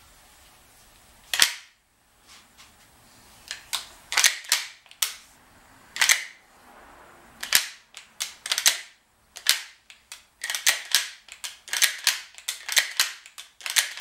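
Winchester Model 62 .22 pump-action rifle being cycled by hand, its slide and action clacking open and shut. The clacks are scattered at first, the first about a second and a half in, and come quickly one after another in the last few seconds.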